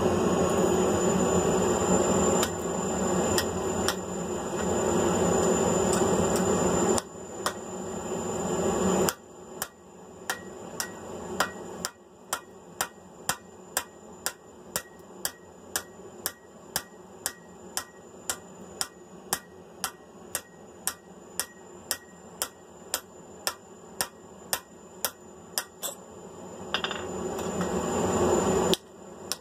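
Hand hammer striking steel on the anvil, about two ringing blows a second, driving a drift through the punched holes in mild steel flat bar. A steady roar fills the first nine seconds or so and builds again near the end.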